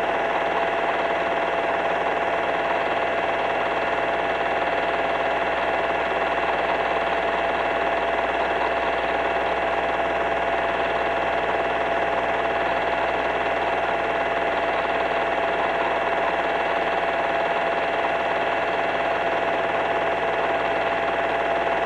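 Steady mechanical whir of a home-movie film projector running, with a constant high-pitched tone over an even hum.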